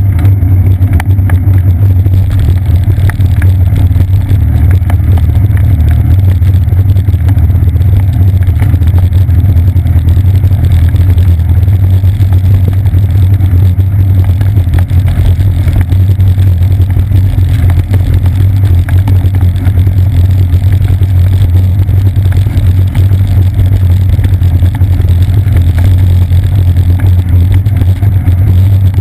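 Steady, loud low rumble of wind and ride vibration picked up through the waterproof housing of a seat-post-mounted GoPro Hero 2 as the bicycle rolls along.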